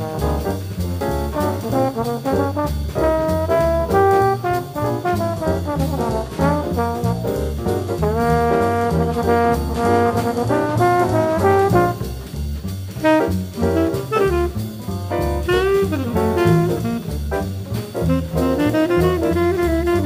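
Bebop small-group jazz recording: a trombone plays a quick run of notes over a rhythm section of bass and drums.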